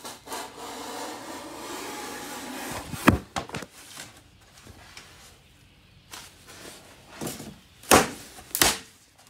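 Utility knife scoring a sheet of rigid foam board insulation, a scratchy drag lasting a couple of seconds, then a sharp crack about three seconds in as the board snaps along the score. Two loud thumps near the end as the foam piece is knocked against the floor.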